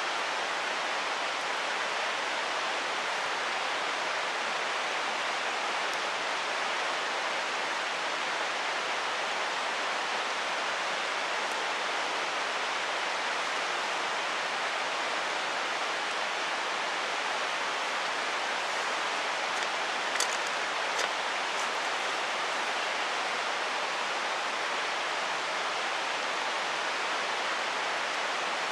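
Mountain stream rushing in a steady, even flow, with a couple of faint clicks about twenty seconds in.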